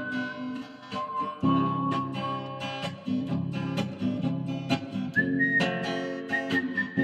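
A person whistling a song melody in long held notes over strummed acoustic guitar. The whistled line climbs to a higher sustained note a little after halfway.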